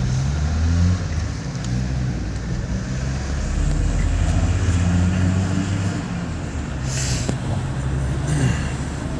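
Car engine and road noise heard from inside the cabin as the car pulls away and drives along a town street, a low hum that rises and eases with the throttle. A short hiss comes about seven seconds in.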